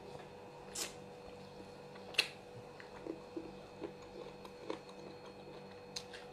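A few sparse soft clicks and taps over a faint steady hum, the sharpest about two seconds in.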